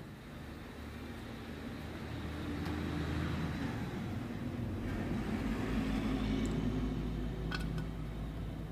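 A motor vehicle engine running steadily, swelling in level and easing off again, with a short light click near the end.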